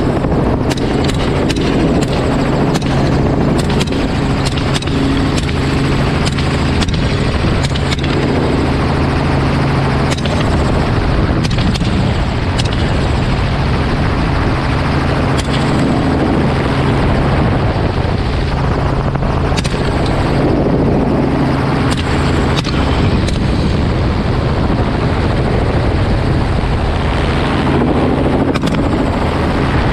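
Helicopter rotor and engine running steadily, heard from inside the open-doored cabin, with short sharp sounds scattered through it.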